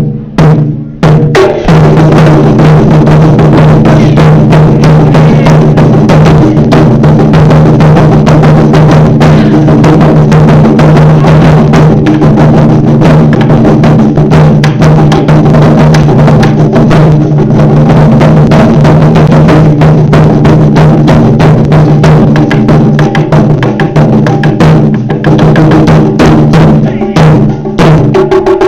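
Taiko ensemble drumming on large Japanese drums: a loud, dense, rapid run of strikes that continues without a break after a short pause about a second in.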